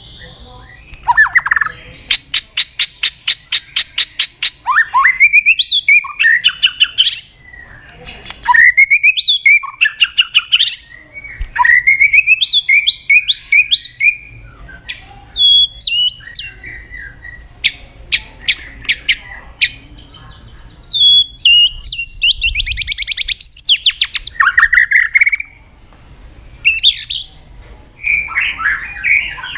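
White-rumped shama (murai batu) in full song: a loud, varied run of slurred whistles, rising and falling notes and fast rattling trills, in phrases broken by short pauses.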